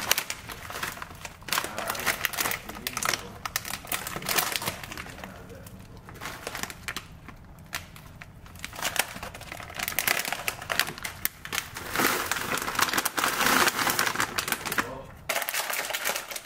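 Crispy fried chili peppers and their plastic bags being handled, crinkling and clicking as the peppers are emptied into a container. The crackling is dense and irregular, busiest a few seconds before the end, then drops off suddenly.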